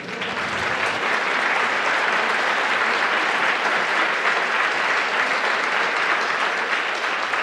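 Audience applauding: a steady round of clapping from a large seminar crowd.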